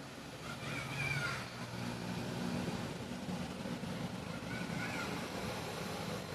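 A motor running steadily with a low hum over a continuous wash of noise. Two short high chirps come about a second in and again around five seconds in.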